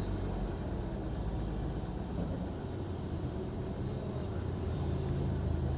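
Honda City petrol engine idling steadily and evenly. Its cylinder 3 misfire (code P0303) has been cured by a replaced injector, so it no longer runs rough.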